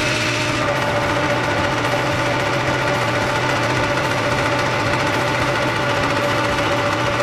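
South Bend Heavy 10 metal lathe running steadily under power feed, its threading tool cutting fine 44-threads-per-inch threads into the hand wheel pinion shaft.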